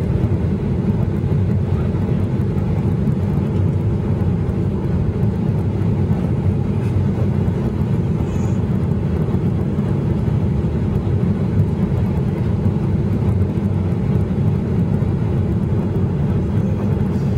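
Steady cabin roar inside a Boeing 737-800 on approach with its flaps extended: the CFM56 engines and the rush of air around the airframe make a deep, even rumble that does not change.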